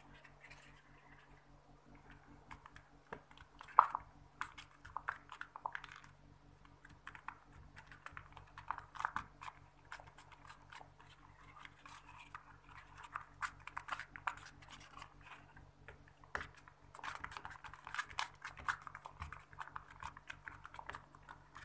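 Fingers pressing the folded-paper cubes of a homemade origami pop-it fidget toy: faint, irregular crinkly paper clicks in quick runs, with one sharper click about four seconds in. A low steady hum runs underneath.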